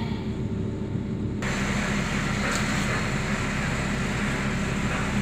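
Idling coach diesel engine heard inside the cabin: a steady low hum. A brighter hiss comes in abruptly about a second and a half in.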